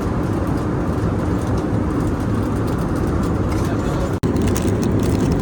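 Steady rushing noise inside a jet airliner's cabin in flight. It breaks off for an instant about four seconds in, then carries on the same.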